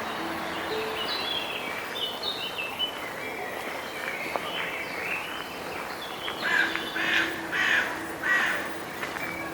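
Small songbirds chirping, then a crow cawing four times in steady succession near the end, loud and harsh.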